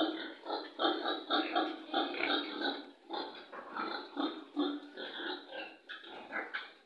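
Pigs grunting in a rapid run of short grunts, about three to four a second, with a brief lull about halfway through.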